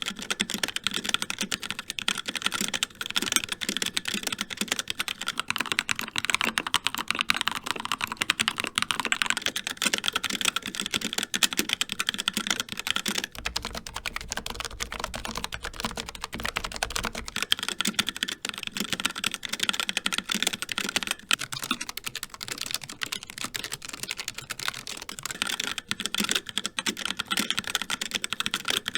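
Continuous fast typing on a HyperX Alloy Origins mechanical keyboard with linear HyperX Red switches: a steady stream of key clicks and clacks.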